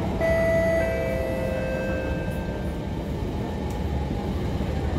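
Two-note falling chime from the SMRT C151 train's on-board announcement system. The notes ring out and fade over a couple of seconds as the lead-in to the next-station announcement. Underneath is the steady low rumble of the train running.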